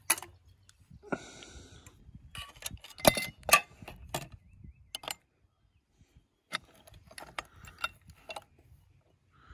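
Metal chainsaw-mill clamp brackets clanking and clinking as they are picked up and handled against each other. There is a cluster of louder knocks about three seconds in, then a run of lighter clicks near the end.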